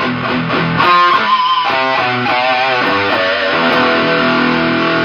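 Electric guitar played through a solid-state amplifier. It plays a phrase of single notes with a wavering held high note about a second in, then settles into a sustained ringing chord from about four seconds.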